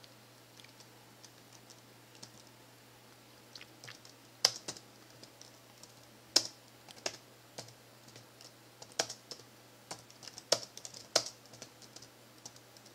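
Typing on an ASUS K60I laptop's keyboard: irregular, unhurried keystrokes, faint and sparse at first, with several louder clacks from about four seconds in.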